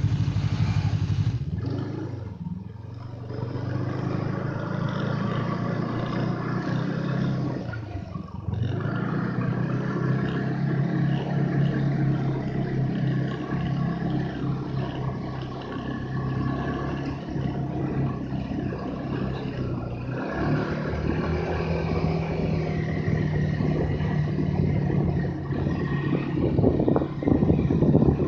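Snowmobile engine running under throttle. Its pitch drops and climbs back twice early on as the throttle is eased off and opened again, and near the end there is some rough clattering.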